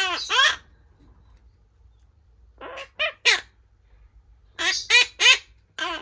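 Monk parakeet (Quaker parrot) calling: short calls that each drop in pitch, in quick runs of two or three.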